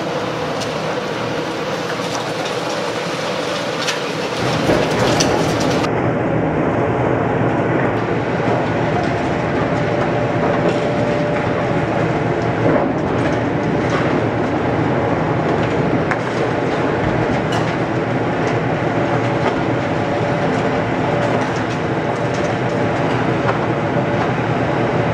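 High-reach demolition excavator running steadily while its hydraulic crusher jaws bite into the concrete of a tower block, with many short crunches and knocks of breaking concrete and falling debris. The sound shifts and grows slightly louder and deeper about four seconds in.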